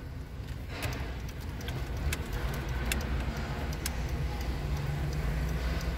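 Car running, heard from inside the cabin as a steady low engine and road rumble, with light ticks about once a second.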